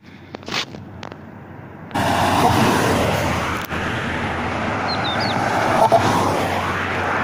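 Wind buffeting the microphone in short gusts, then, about two seconds in, a steady loud rush of wind noise.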